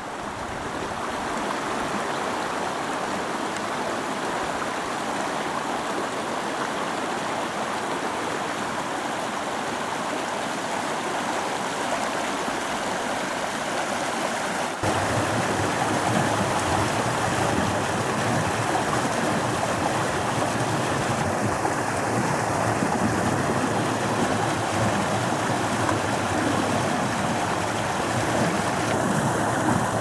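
River water rushing over and between rocks in shallow rapids, a steady rushing noise. About halfway through it becomes louder and fuller, with more low rumble, as the churning white water among the rocks is heard up close.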